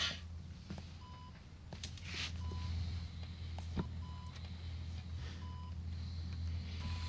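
Hospital patient monitor beeping, one short beep about every 1.3 seconds, over a steady low hum. A few soft breathy hisses come and go, at the start, about two seconds in and near five seconds.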